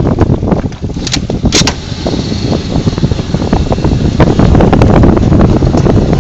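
Loud, uneven low rumble of wind buffeting the microphone, with two sharp clicks about a second in, half a second apart.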